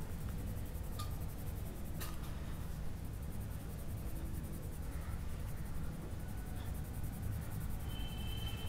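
Colored pencil shading on drawing paper: a faint, soft scratching of the lead over a steady low hum.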